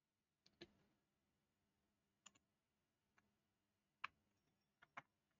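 Faint, sharp clicks of a computer mouse and keys, scattered about a second apart with some in quick pairs, over near silence.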